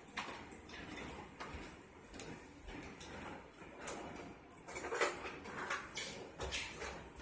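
Metal evaporated-milk can scraping and knocking against the rim of a glass mixing bowl as it is drained into the bowl. Irregular scrapes and clinks, loudest about five seconds in.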